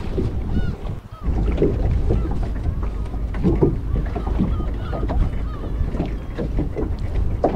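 Water sloshing around a small rowing boat at sea, with wind on the microphone, irregular knocks and a few faint high squeaks.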